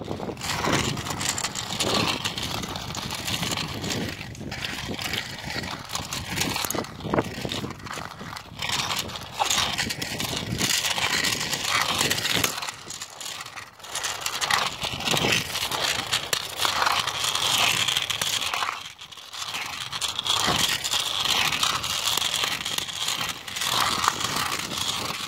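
Rustling, scraping and knocking handling noise from a hand-held phone swinging at walking pace, with wind on the microphone.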